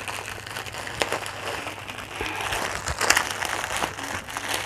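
Bag and packaging rustling and crackling as clothes on hangers are unpacked, with a few sharper clicks.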